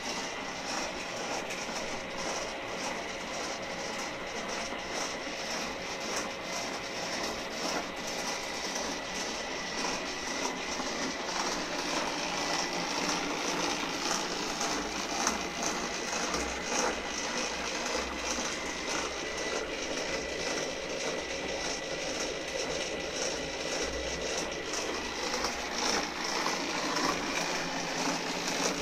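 Bakery roll moulder running: its electric motor and felt-belt rollers turning, a steady machine hum with a thin high whine and a constant patter of small rattling ticks.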